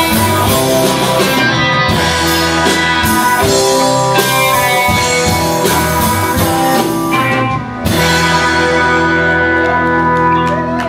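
Live blues-rock band playing: two electric guitars, electric bass and a drum kit. About three-quarters of the way through the sound dips briefly, then the band holds long sustained notes.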